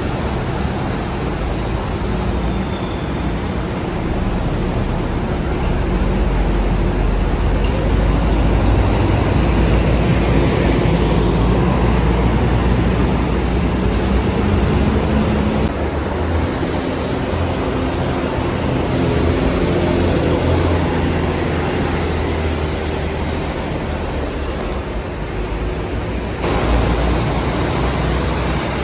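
City buses pulling away in a covered concrete bus interchange, with a steady diesel engine rumble that swells as a bus accelerates. A brief hiss of air about fourteen seconds in, and a closer vehicle sound rises near the end as another bus moves past.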